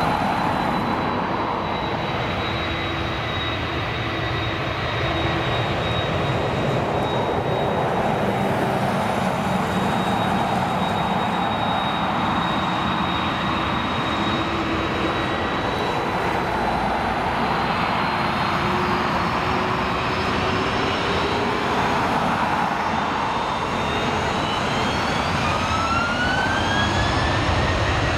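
Airbus A330 jet engines running with a steady rushing noise and a faint high whine. Near the end the whines rise in pitch as the engines spool up.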